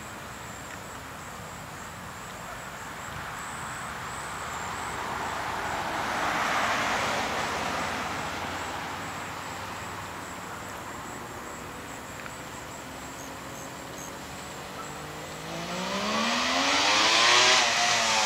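Suzuki GT750's two-stroke three-cylinder engine, first faint in the distance with a swell of noise about seven seconds in, then accelerating hard toward the listener near the end, its pitch climbing steeply before dropping away as it goes by.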